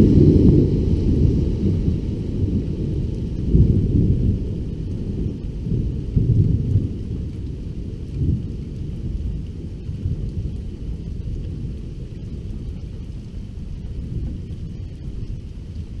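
Thunder rumbling long and low: loudest at the start, swelling again a few times in the first half, then slowly fading away.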